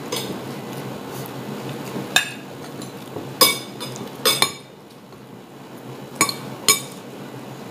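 Metal cutlery clinking and scraping on ceramic plates while rice is scooped up, about six sharp clinks spread over several seconds.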